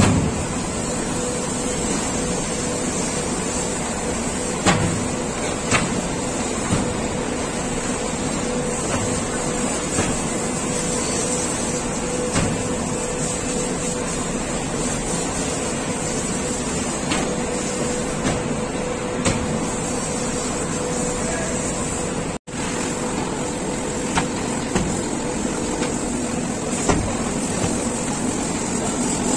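Belt conveyor loading cement bags, running with a steady mechanical hum and a constant tone, with occasional short knocks as bags come down and are handled.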